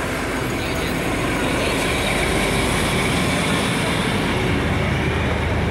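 PKP class SU45 diesel-electric locomotive passing close by with a passenger coach: steady engine drone mixed with the rumble of wheels on the rails, growing slightly louder toward the end.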